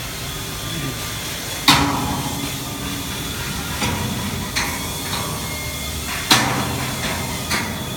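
Hammer blows on a steel chassis frame: five irregular metallic strikes, the two loudest about two seconds in and about six seconds in, each with a short ring, over a steady factory background noise.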